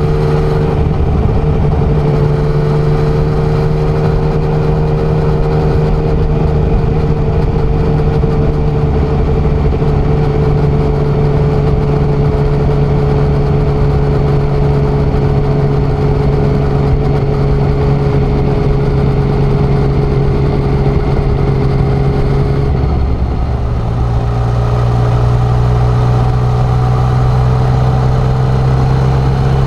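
Yamaha XSR900's three-cylinder engine pulling the bike along at a steady speed. Its note sinks slowly, then drops in pitch once about 23 seconds in.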